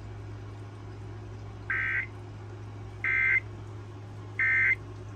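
Three short Emergency Alert System end-of-message data bursts (SAME 'NNNN' tones), high-pitched warbling digital tones evenly spaced about a second apart, signalling that the alert message has ended. A steady low hum runs underneath.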